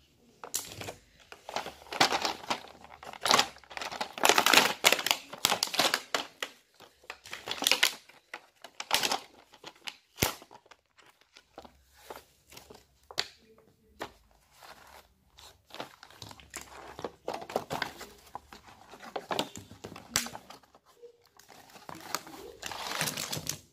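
Thin clear plastic packaging crinkling and rustling as a child's hand rummages in it and pulls out plastic magnetic letters, on and off throughout, with a single sharp click about ten seconds in.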